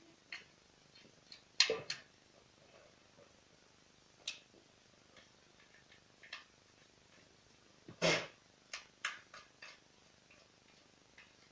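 Scattered short scrapes and clicks from a Ruris 367 chainsaw's plastic cover being cleaned by hand, with two louder scraping strokes, one about two seconds in and one about eight seconds in.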